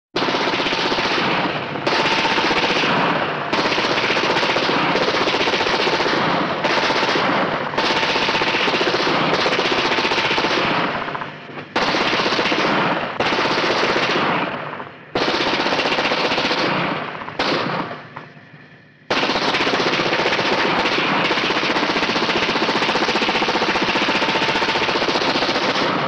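Machine gun firing long bursts of rapid automatic fire, one after another with brief breaks between them. The last burst runs about seven seconds without a pause.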